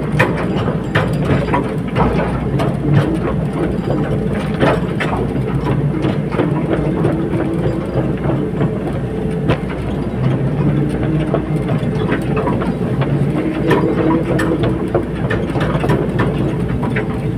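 Caterpillar 320D hydraulic excavator's diesel engine running steadily under working load, its note shifting up and down, with frequent metallic clanks and knocks throughout.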